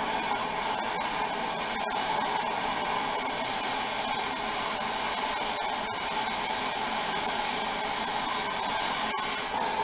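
Handheld gas torch flame hissing steadily as it heats a copper pipe fitting for soldering.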